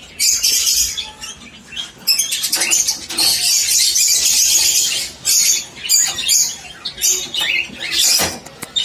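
Many caged small parrots, such as cockatiels, chirping and screeching in an aviary, their calls overlapping almost without pause.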